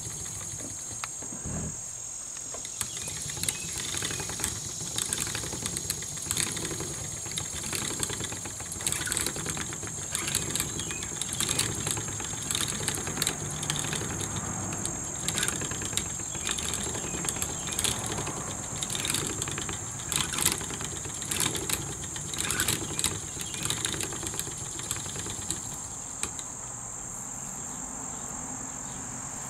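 Treadle spinning wheel turning as raw wool is spun into yarn, its wooden treadle and flyer making a stream of light clicks and knocks that thin out near the end. A steady high insect drone runs underneath.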